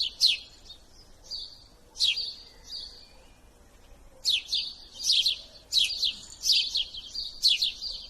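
Small bird chirping: short, quick chirps that sweep down in pitch, a few at first, then a rapid run of them from about four seconds in.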